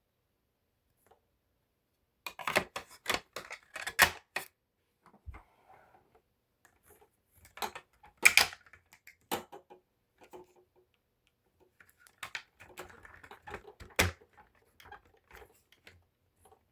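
Clicks, knocks and clatter of hard parts being handled, in three bursts separated by quieter rustling. No motor is running.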